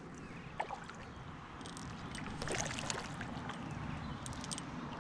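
Kayak being paddled: water splashing and dripping off the paddle blades and trickling along the plastic hull, with scattered small drips and splashes, a little louder from about halfway through.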